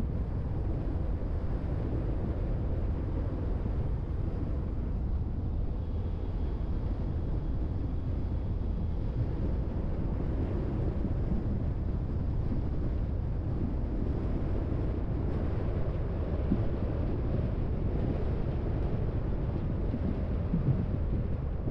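Steady low rumble of a car driving: tyre and road noise.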